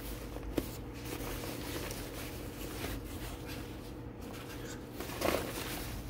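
Quiet room tone: a steady low hum with faint rustling, a light click about half a second in and a short soft sound a little after five seconds.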